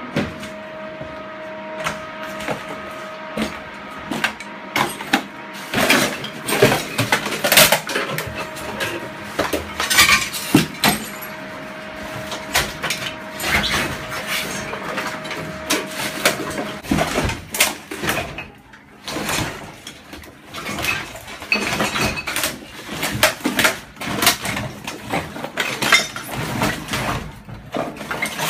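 Fire debris crunching and clinking as a firefighter steps through a burned kitchen: scattered glass, metal pots and charred rubbish knock and scrape underfoot in irregular clatters. A steady thin tone sounds for a few seconds at the start and again in the middle.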